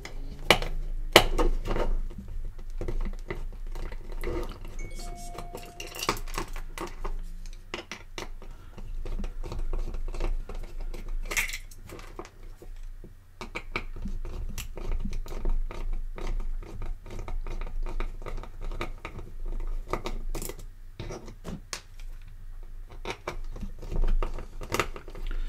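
Small screws being undone with a screwdriver from the hot air gun's cradle bracket. Irregular clicks and light metallic clinks come and go as the screws, screwdriver and bracket are handled and the screws are set down on a cutting mat.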